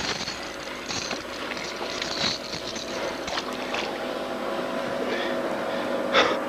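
A boat motor runs steadily, with short splashes and rattles of water, net and lure at the boat's side as a netted musky is unhooked. The loudest splash comes near the end.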